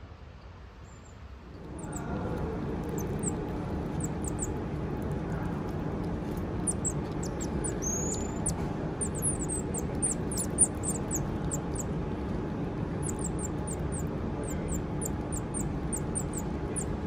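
Common marmosets calling with many short, very high-pitched chirps, with one longer whistled call about eight seconds in, over a steady low hum. A single brief knock comes about ten seconds in.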